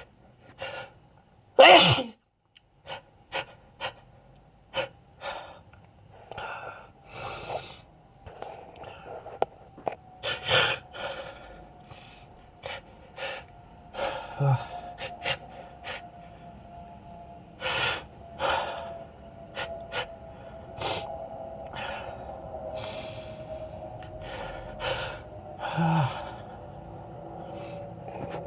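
Allergy sneezing fit brought on by sniffing pollen from flowers. A loud sneeze comes about two seconds in, followed by a long run of short sniffs, gasping in-breaths and further sneezes.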